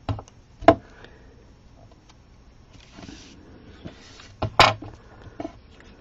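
Hands handling paper pieces and craft tools on a desk: a few sharp knocks and taps, the loudest a little under a second in and about four and a half seconds in, with brief paper rustling between them.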